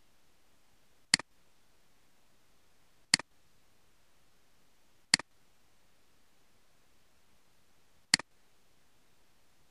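Computer mouse button clicked four times, two to three seconds apart, each a sharp click followed at once by a softer release click.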